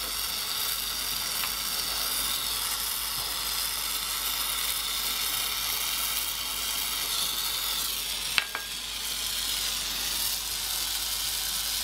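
Small oxy-fuel gas torch flame hissing steadily while heating a steel rivet for setting. A single sharp click comes a little past eight seconds in.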